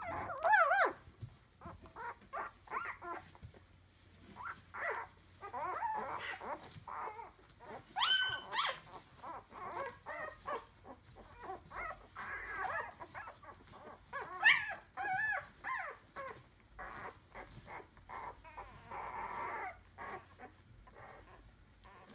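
Seven-day-old Entlebucher Mountain Dog puppies whimpering, a string of short high cries one after another. There is a sharp squeal about eight seconds in and the loudest cry a little after fourteen seconds. The cries thin out near the end.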